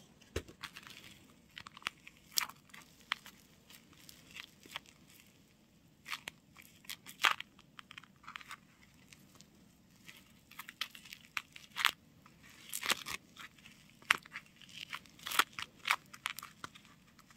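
Tape-covered paper crinkling and crackling in irregular bursts as fingers press and pinch the seams of a homemade paper squishy shut.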